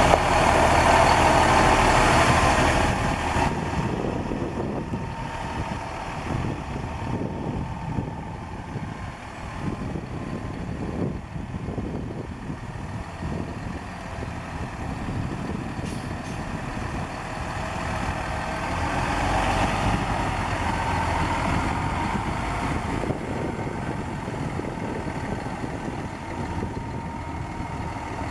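Peterbilt bucket truck's diesel engine idling steadily. It is louder in the first three seconds and swells again about twenty seconds in.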